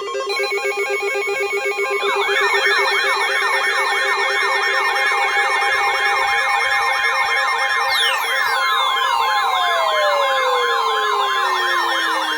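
Several phone weather-alert tones sounding at once, set off by a tornado warning. A pulsing electronic beeping is joined about two seconds in by a fast, wailing siren tone, and from about eight seconds repeated long falling whistle-like glides are added.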